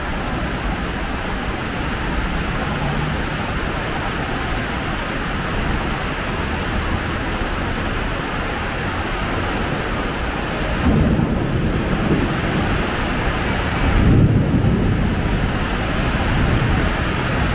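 Steady rain hiss. Twice in the second half, about three seconds apart, a low rumble swells up and dies away.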